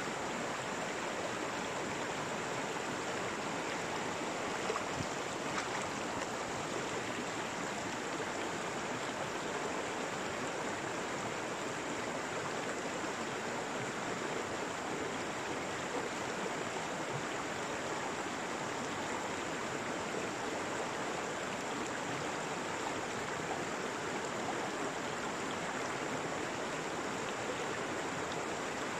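Steady rush of running stream water, with a couple of faint knocks about five seconds in.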